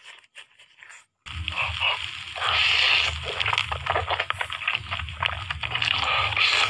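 Loud, wet, close-up slurping of black bean sauce noodles, thick with small smacking clicks, starting abruptly about a second in. Before it come a few faint wet eating sounds.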